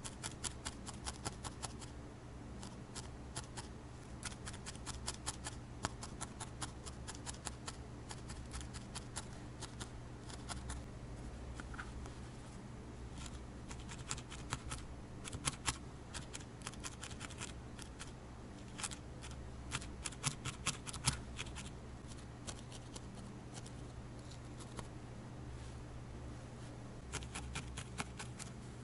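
Felting needle stabbing repeatedly into a firm ball of wool, making crisp, crunchy pokes at about five a second in runs with brief pauses. The needle is compacting the wool around the eyes so that it holds its shape.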